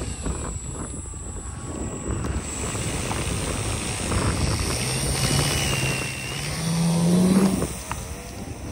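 Electric motor and tractor propeller of a hand-launched fixed-wing FPV plane running up: a steady drone from about halfway through that rises in pitch near the end and then drops away quickly as the plane leaves. Wind noise on the microphone runs underneath.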